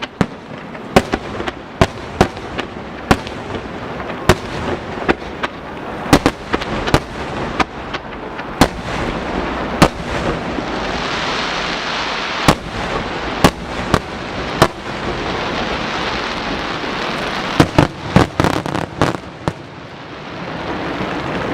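Aerial fireworks bursting overhead: a long run of sharp bangs at an irregular pace, sometimes several a second. A dense rushing hiss swells in the middle of the run, dies down, then builds again near the end.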